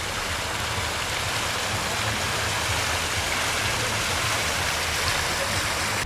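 Steady rushing of water, an even splashing hiss that carries on without a break.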